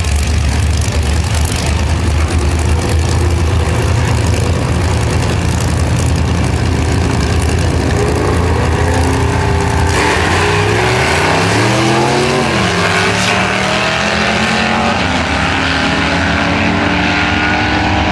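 Two drag-racing cars, a first-generation Camaro and a vintage coupe, running loud and low at the start line. About ten seconds in they launch and accelerate away, the engine pitch climbing and dropping back at each gear change as they pull off down the strip.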